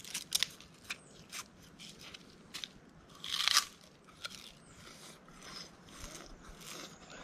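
A stalk of sugar cane being bitten and torn at with the teeth: a string of sharp, separate crunches and cracks, with the loudest and longest tearing crunch about three and a half seconds in.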